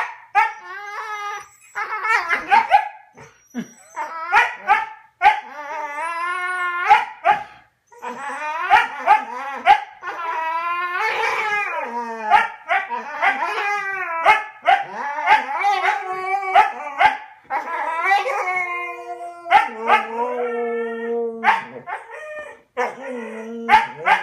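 Huskies howling and 'talking' at each other: long wavering calls that slide up and down in pitch, broken by short barks and yips, going almost without pause.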